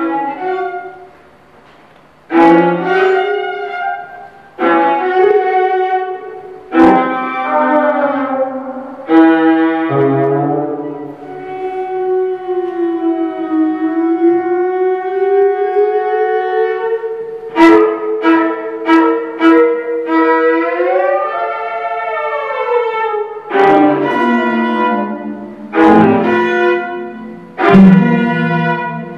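Solo viola with live electronics in contemporary music. Sharp accented bowed strokes come about every two seconds, then a long held note slides slowly in pitch, with several layered tones gliding together before more accented strokes.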